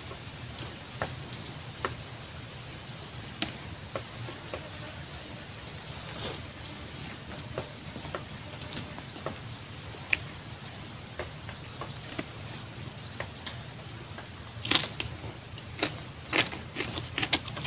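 Steady high insect drone with a low hum beneath it. Over it come scattered small clicks and smacks of eating by hand, thickening into a quick run of them near the end.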